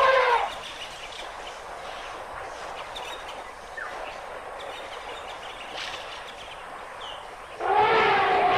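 Steady outdoor background noise with a few faint bird chirps, framed by loud elephant calls: one dies away in the first half second, and another, wavering in pitch, begins about a second before the end.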